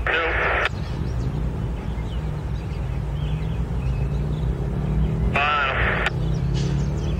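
Norfolk Southern diesel locomotives hauling a double-stack intermodal train, their engines running with a steady low rumble. Two short warbling sounds come at the very start and again about five and a half seconds in.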